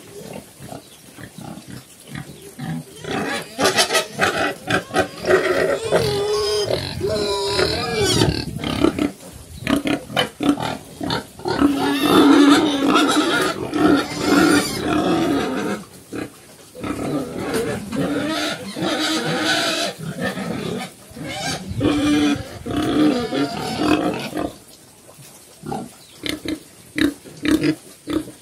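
Cambodian black pigs (Chrouk Kandorl), a sow and her piglets, calling in long loud bouts of pitched vocalizing with short pauses, ending in a run of short calls at about two a second.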